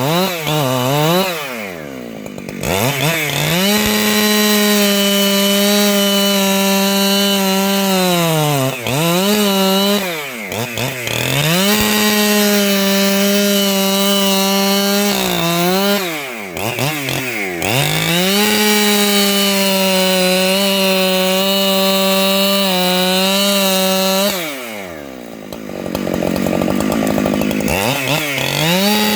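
585XP two-stroke chainsaw running at high revs while ripping wood lengthwise. Its engine note falls and climbs back up four times.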